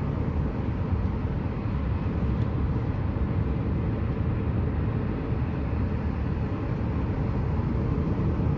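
In-cabin sound of a 2021 Lada Granta driving at a steady speed: an even low rumble of its 87-hp engine and tyre and road noise, with no gearbox whine standing out.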